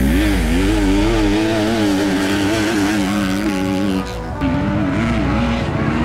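Motocross dirt bike engine revving up and down in quick waves as the throttle is worked over the track. The sound dips briefly about four seconds in, then another bike revs the same way.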